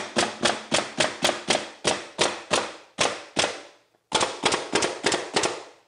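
Pneumatic 18-gauge underlayment stapler firing staples into plywood underlayment, a quick run of sharp shots about three or four a second as the edge is stapled every 2 inches. There is a brief pause a little before four seconds, then another run.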